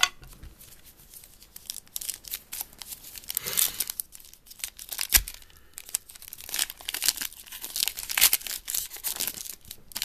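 Wrapper of a Topps Archives football card pack being torn open and crinkled, crackling and rustling in uneven bursts, with one sharp click about five seconds in.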